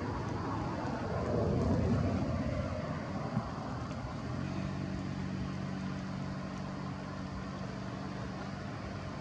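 A motor vehicle's engine running, settling into a steady low hum about four seconds in over a rumbling background.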